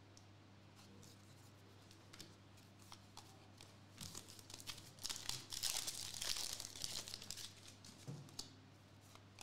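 Foil wrapper of a Donruss Elite trading-card pack crinkling as it is taken from the stack and torn open. A few light clicks come first, then the tearing and crinkling is loudest about five to seven seconds in, over a steady low hum.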